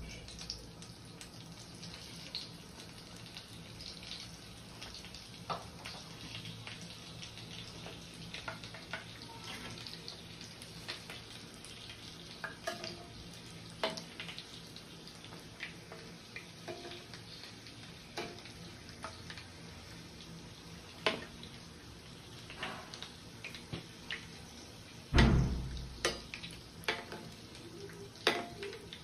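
Breaded cheese corn balls deep-frying in a small pan of hot oil: a steady sizzle with scattered crackles, and the clink of a metal slotted spoon against the pan. A louder bump near the end.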